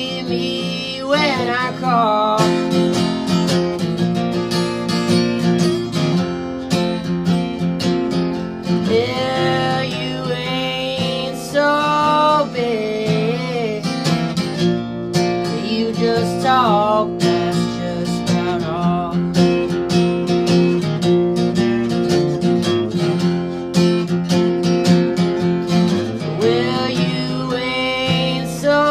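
Steel-string acoustic guitar strummed steadily, with a young man's voice singing phrases over it.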